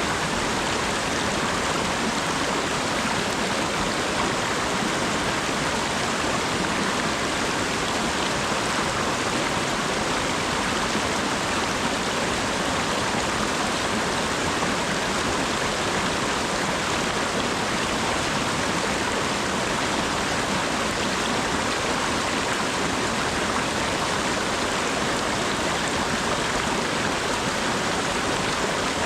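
Steady rainfall: an even, unbroken hiss with no distinct drops or pauses.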